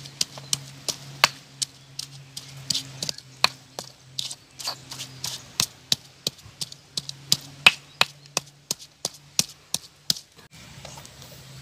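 Stone pestle pounding fresh red chillies in a stone mortar (Indonesian cobek and ulekan): sharp stone-on-stone knocks about three a second. The pounding stops about ten seconds in.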